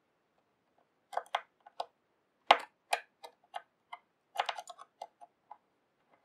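Irregular small clicks and taps of a screwdriver working the post screws on the metal build deck of a Kayfun 5 clone rebuildable atomizer as the screws are loosened. They come in three loose clusters, the sharpest click about two and a half seconds in.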